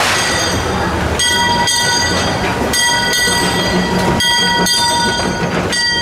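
Narrow-gauge 2-4-0 steam tank locomotive passing close by, with its exhaust chuffing about twice a second over a low rumble of the running train. A steady high-pitched tone rings over it throughout.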